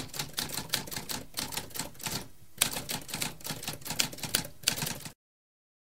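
Typewriter keys typing: a quick run of sharp key strikes with a brief pause a little after two seconds in, stopping abruptly about five seconds in.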